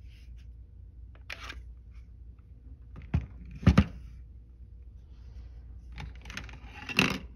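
Hard plastic knocks as a polymer-framed Glock 20 pistol is set down into its plastic factory case, the loudest pair of clacks a little over three seconds in. A cluster of clacks follows near the end as the magazines are picked up out of the case.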